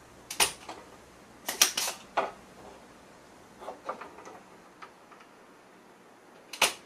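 Spring-loaded solder sucker (desoldering pump) being cocked and fired to clear solder from circuit-board holes. It makes sharp plastic snaps: several in the first two seconds, softer ones around the middle, and a loud one near the end.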